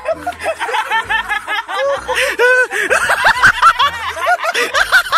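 Young men laughing hard in quick, breathy bursts, several voices overlapping.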